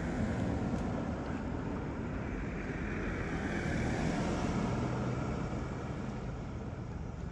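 Road traffic: a vehicle passing on the road, its noise swelling about halfway through with a faint low hum, then fading.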